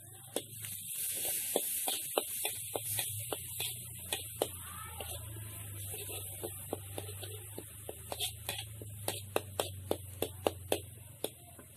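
Metal spatula clacking and scraping against a steel wok while tiny dried shrimp (udang rebon) and sautéed garlic, shallot and chilli are stir-fried, over a steady hiss of frying. The clacks come irregularly and grow quicker after about eight seconds.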